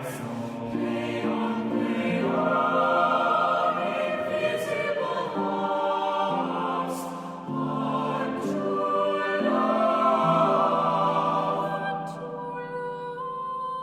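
Music: a group of voices singing in harmony, holding long notes that change every second or two, softening briefly near the end.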